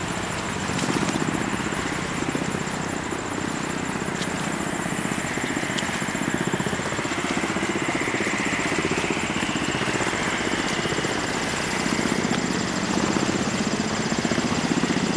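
Two tandem-rotor military helicopters flying low: a steady, rapid rotor chop, growing a little louder as they approach.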